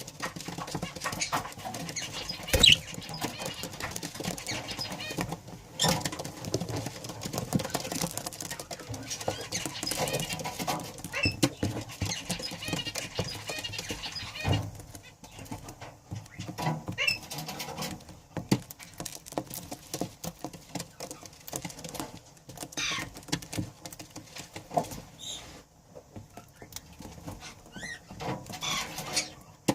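Budgerigars chattering with quick warbling chirps, over scratching and tapping sounds. The chatter is busy in the first half and thins out about halfway through.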